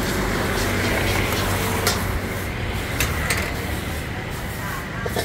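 A metal ladle scraping and clanking against a wok as fried rice is stir-fried over a gas flame, with a few sharp clanks standing out. Under it runs a steady hiss of gas burners and sizzling.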